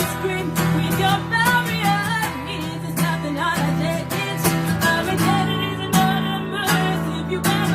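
A woman singing with a strummed acoustic guitar.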